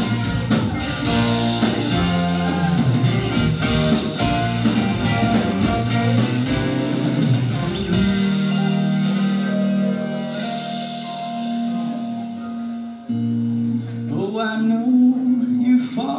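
Live rock band playing with electric and acoustic guitars, drums and keyboard. About halfway the drums and bass drop out, leaving held chords, and a voice sings again near the end.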